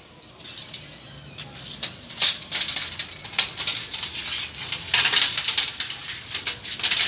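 Aluminium dog cage frame and panels clinking and rattling as the cage is folded down: a run of light metal clicks and knocks, busiest about two seconds in and again around five seconds in.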